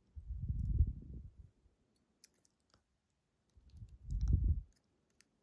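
Light clicks of metal tweezers and small lock parts being handled while wafers are set into a lock cylinder. Two louder low muffled rumbles of handling noise, about a second each, come near the start and around four seconds in.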